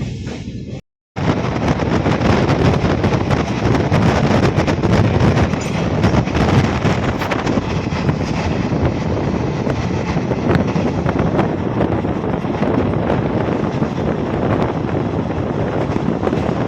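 Steady loud rumble and rush of a moving vehicle, with wind buffeting the microphone and frequent small rattles and clicks. About a second in, the sound cuts out briefly to silence and then resumes.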